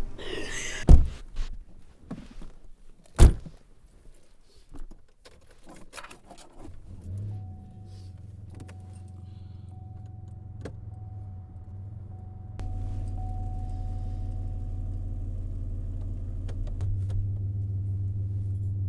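Two car doors shut about two seconds apart, with keys jangling, then a car engine starts and runs at a steady idle. A thin steady tone, like a dashboard chime, sounds over the engine for several seconds.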